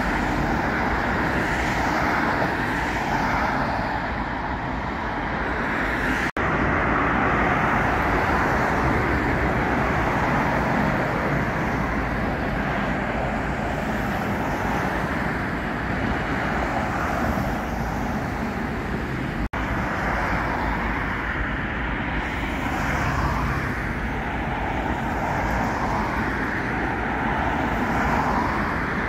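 Steady road traffic noise with vehicles passing one after another. There are two brief drop-outs, about six and about nineteen seconds in.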